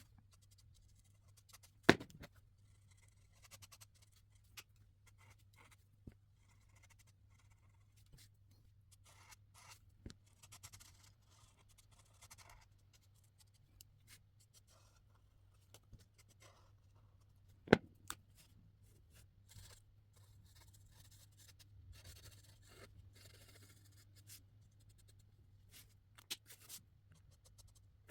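Markers stroking across paper: faint, intermittent scratching, broken by two sharp clicks, one about two seconds in and a louder one near the eighteenth second, over a low steady hum.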